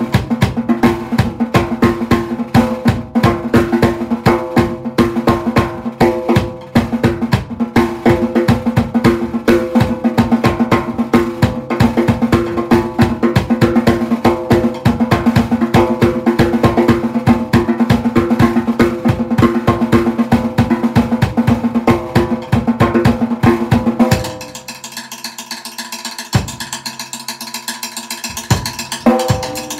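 Drum kit played with wooden sticks: a dense run of snare strokes with toms and cymbals, over steady held pitches underneath. About 24 seconds in the playing drops away and goes quieter and sparser, then picks back up just before the end.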